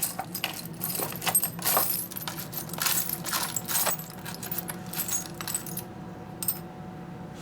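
Loose metal washers clinking and jangling as a hand rummages through a parts drawer. There is rapid clattering for most of the time, then it goes quiet apart from one last click near the end.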